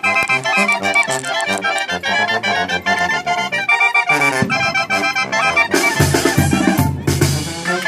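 Accordion-led music playing, with a fuller passage with deep bass notes starting about six seconds in.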